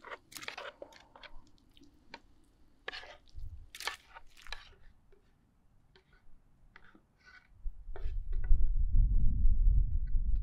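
Metal kitchen tongs clicking and scraping on a wooden board as pieces of cooked fish are pushed into a pot, in sharp separate ticks. About seven seconds in, a loud low rumble takes over.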